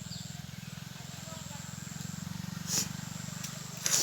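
A person forcefully blowing their nose near the end, a loud, long, noisy blast, after a short sharp sniff about three seconds in. A steady low hum runs underneath throughout.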